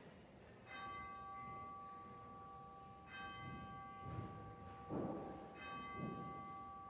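A bell struck three times, about two and a half seconds apart, each stroke ringing on with a clear steady tone; rung to open a moment of silence. A short muffled noise sounds about five seconds in.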